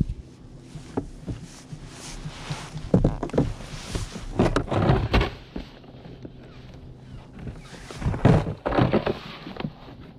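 Knocks, thunks and rustling of gear being handled on a plastic fishing kayak, in two spells: about three to five seconds in, and again about eight seconds in.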